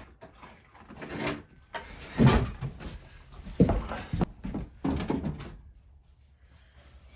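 A handful of irregular dull knocks and thumps, spaced about a second apart, the loudest about two seconds in, then quieter near the end.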